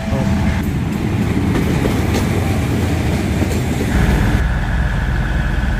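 Diesel railcar train rolling past with wheels clattering over the rail joints. About four seconds in, this gives way to a deeper, steadier diesel rumble with a steady high whine.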